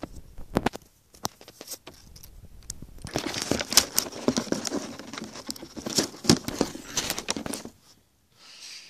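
Handling noise from the recording camera being moved and set up, rubbing against clothing: scattered clicks and knocks, then a dense stretch of rustling and knocking that stops about a second before the end. A short soft hiss follows near the end.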